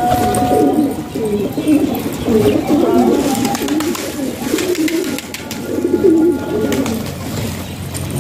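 A flock of domestic fancy pigeons cooing continuously, many birds' coos overlapping.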